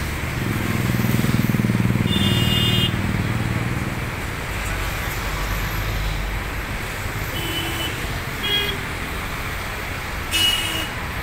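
Road traffic noise with vehicle horns honking in short toots: once about two seconds in, twice around seven to nine seconds, and once near the end. A vehicle engine rumbles past loudest in the first three seconds.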